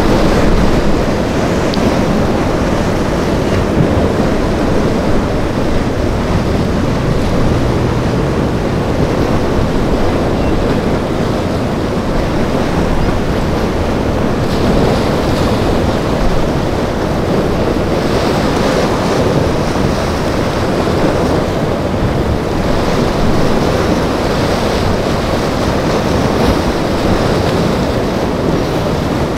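Rough surf and breaking waves in a steady wash, with wind buffeting the microphone.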